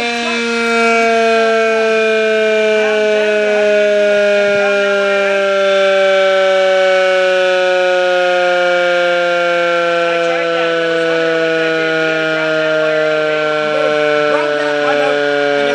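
Motor-driven mechanical siren sounding a loud, steady multi-tone wail that slowly and evenly drops in pitch, as if the rotor is coasting down. A low hum underneath stops about four seconds in.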